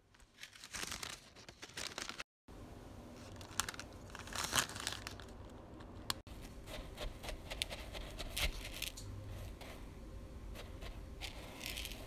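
Scissors snipping baking paper with the paper crinkling. After a brief break, a silicone spatula scrapes and presses crushed digestive-biscuit crumbs into a metal cake tin, with irregular scratchy crunches over a low steady hum.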